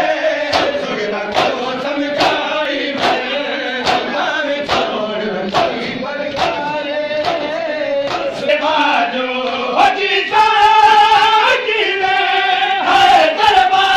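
A crowd of men chanting a noha, a Shia lament, in unison, over a steady beat of hands slapping bare chests (matam) about once every 0.8 seconds. The chanting grows louder about ten seconds in.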